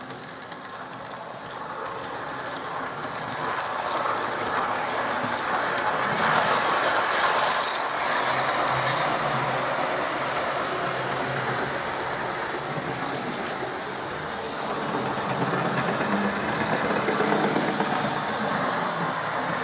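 Hornby Santa Express 0-4-0 tank model locomotive running on OO-gauge track while hauling six coaches: a steady high electric-motor whine over the running noise of wheels on rails, louder near the end as the train passes close.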